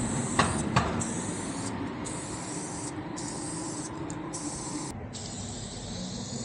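Aerosol spray paint can hissing as paint is sprayed onto a wall, in about five short bursts with brief pauses between them. Two sharp clicks about half a second in.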